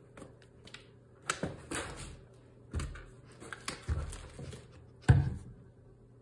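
A string of short sprays and knocks from a handheld plastic spray bottle squirted at a cat while the cat bats at it with its paw, the loudest a knock about five seconds in.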